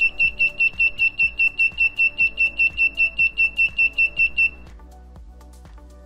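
Small electronic buzzer on a Raspberry Pi Pico breadboard beeping at a high pitch, about five short beeps a second, and stopping about four and a half seconds in: the burglar alarm going off because the PIR motion sensor detected movement. Background music plays underneath.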